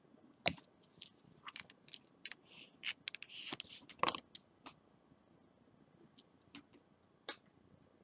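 Faint handling of nail-stamping tools on a metal stamping plate: a short scrape a little past halfway, as polish is wiped across the plate's engraved peacock-feather image, and a few light clicks and taps of the tools.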